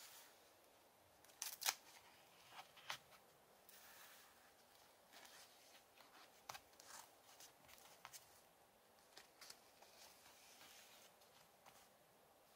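Pages of a handmade booklet of eco-dyed paper being turned by hand: faint, scattered paper rustles and crisp flicks, the loudest ones in the first few seconds.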